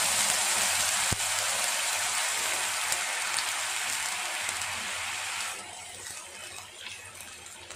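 Hot oil-roasted little millet sizzling and bubbling in a non-stick kadai just after warm water has gone in, stirred with a wooden spatula, with one sharp knock about a second in. The hiss dies down noticeably about five and a half seconds in.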